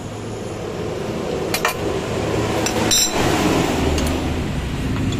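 A few sharp metallic clinks and knocks of hand tools on motorcycle CVT parts, the loudest about three seconds in, over a steady low hum.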